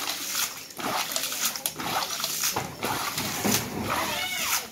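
Hands slapping and sloshing in shallow muddy water, a quick irregular run of splashes while feeling through the mud for fish. A short high-pitched cry sounds near the end.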